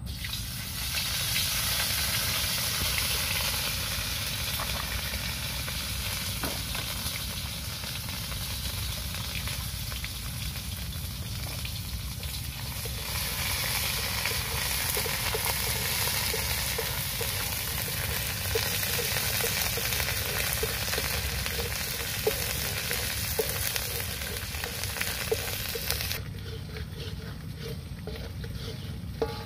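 Food sizzling in a hot steel wok over a wood fire, stirred with a metal spatula that taps and scrapes the pan now and then. The sizzle is a dense hiss that drops to a lower level near the end.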